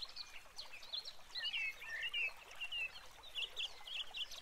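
Several birds chirping and singing in quick short notes, over a faint steady hiss of background ambience.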